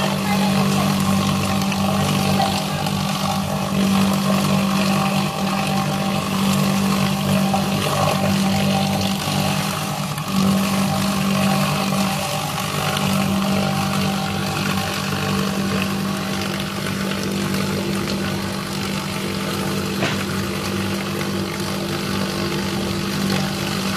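Bowl cutter running, its rotating bowl and high-speed knives chopping a pink paste of minced meat: a steady hum under a noisy whir.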